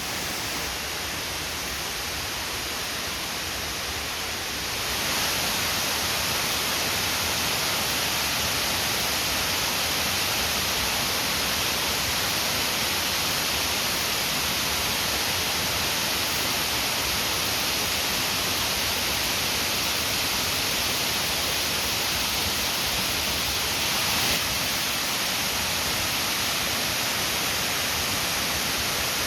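Steady rush of water pouring over a weir, a dense even hiss that gets louder about five seconds in.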